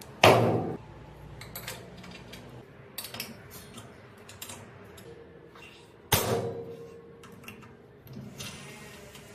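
Metal parts clanking and clinking at an electric tapping machine: two loud metallic clanks with a short ring, about six seconds apart, and lighter clicks and taps between them.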